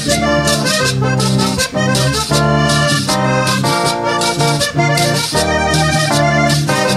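Live vallenato band playing an instrumental passage: a button accordion carries the melody over electric bass and a steady percussion rhythm.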